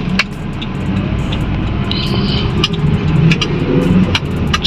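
Car with a carburetted Toyota 2E engine driving on a test drive, its vacuum leaks and clogged gas filter just fixed: a steady low engine and road rumble that grows a little louder, with scattered sharp clicks.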